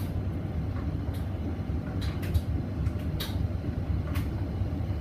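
Hoover VisionDynamic washing machine running, with a steady low hum from the drum turning its blanket load. A few short swishes or clunks come about two, three and four seconds in.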